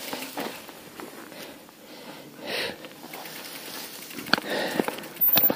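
A person breathing hard after exertion, with a loud breath or sniff about two and a half seconds in. A few sharp clicks and some rustling come near the end.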